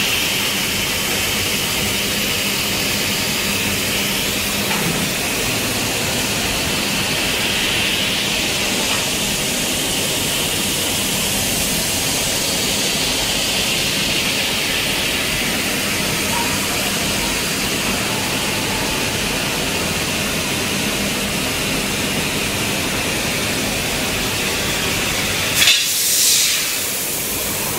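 Robot-mounted fiber laser cutting head cutting sheet metal: a steady hiss of assist gas jetting through the nozzle, over a faint low hum. A little before the end a brief, sharp, louder burst of hiss.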